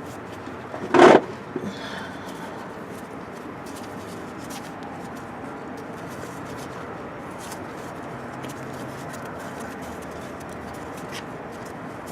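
A single loud knock of a hand tool against metal about a second in, with a couple of lighter taps just after; then only low steady background noise with scattered faint clicks.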